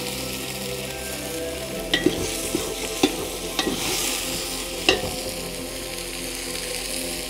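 Shallot, curry-leaf and mustard-seed tempering sizzling in hot oil in a large aluminium pot as mashed toor dal is stirred in with a metal ladle. The ladle knocks against the pot about five times.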